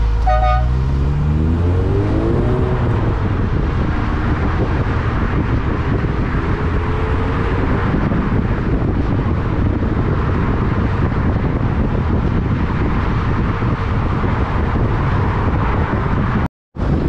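Lotus Elise Sport 160's 1.8-litre Rover K-series engine accelerating, its note rising over the first few seconds, then steady wind and road noise at speed with the roof off. The sound cuts out briefly near the end.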